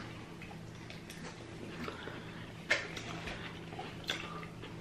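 People eating rotisserie chicken: quiet chewing and lip-smacking with a few sharp mouth clicks, over a faint steady hum.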